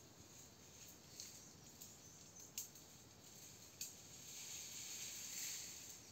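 Faint branch-cutting in a tree for goat fodder: a few sharp cracks of the blade or snapping twigs, then leaves rustling for about two seconds near the end.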